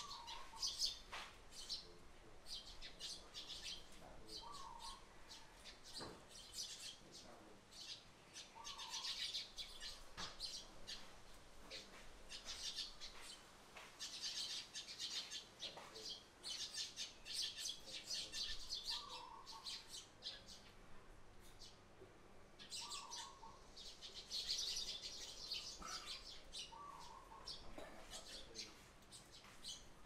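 A small flock of Eurasian tree sparrows chirping around a feeder, with many short overlapping chirps coming in busy spells a few seconds long. A lower short call recurs every few seconds.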